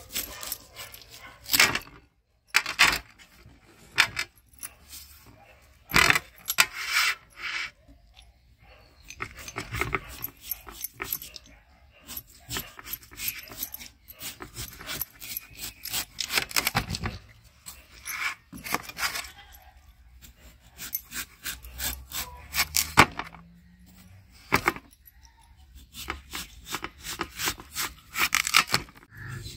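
Large kitchen knife cutting and shaving the rind off a whole watermelon: crisp slicing and scraping strokes through the rind, coming irregularly with short pauses between.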